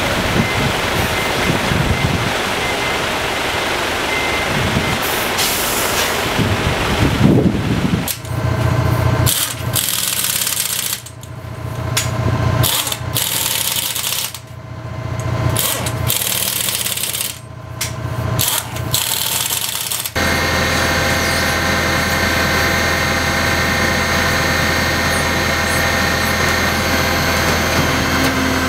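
Truck diesel engine running, then a pneumatic impact wrench on the truck's wheel nuts, hammering in several bursts with short pauses. About two-thirds in the sound changes suddenly to a steady machine hum.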